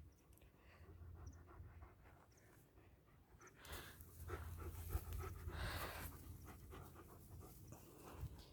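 German Shepherd dog panting quickly and rhythmically to cool down in the heat, faint at first and louder about halfway through.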